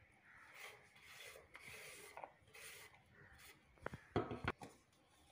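Faint rustling and patting as handfuls of chopped onion are dropped into a bowl of chopped vegetables, with a brief louder clatter about four seconds in.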